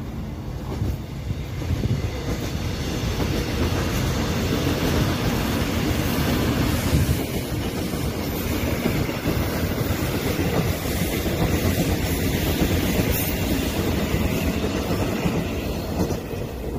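Electric train running on the tracks: a steady rail rumble with some wheel clatter, growing louder about two seconds in.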